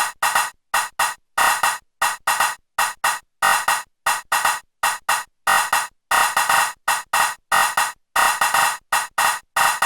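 Erica Synths Perkons HD-01 drum synthesizer playing a sequenced pattern of short, bright, noisy hits that cut off sharply, several a second, with some steps repeated as fast ratchet rolls.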